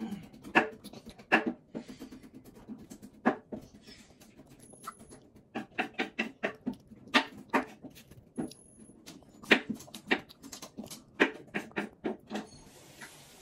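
A child's mouth smacking and sucking close up while eating cotton candy and licking her fingers: an irregular string of short, sharp, wet clicks.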